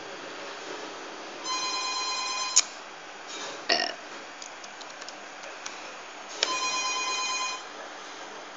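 An electronic ringing tone sounds twice, each about a second long and about five seconds apart, over a steady hiss. A sharp click ends the first ring, and a short knock follows about a second later.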